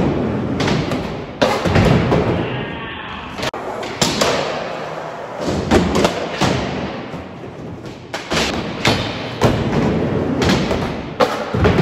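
Skateboard wheels rolling on smooth concrete, with repeated sharp clacks and thuds of the board hitting the ground and walls as tricks are popped and landed.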